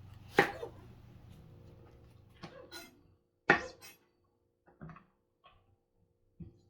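Kitchen clatter: a series of sharp knocks, the two loudest about three seconds apart, over a low hum that stops about three seconds in.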